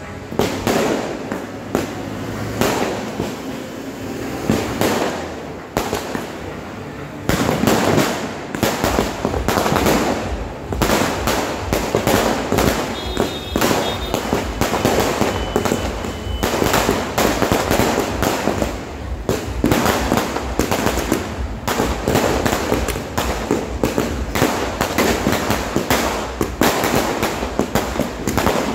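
Fireworks and firecrackers going off nonstop: a dense run of overlapping bangs and crackles with no pause.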